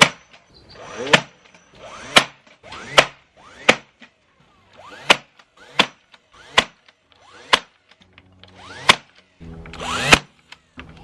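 Cordless drill driving screws into wood in short bursts, about a dozen quick trigger pulls that each spin up and stop abruptly, with one longer run near the end.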